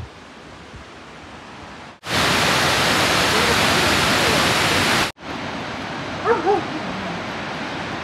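Steady rushing roar of a large waterfall, edited in three pieces: fainter at first, much louder and closer for about three seconds, then softer again. A brief pitched call cuts through about six seconds in.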